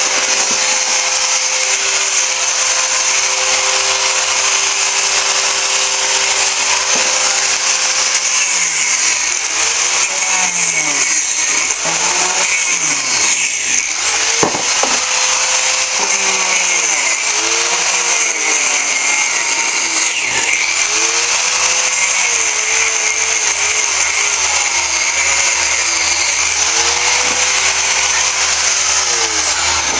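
Electric angle grinder with a grinding disc, running continuously as it cuts into the plastic housing of a Kärcher pressure washer. Its whine holds steady at first, then from about nine seconds in keeps dipping in pitch and recovering as the disc bites and is eased off.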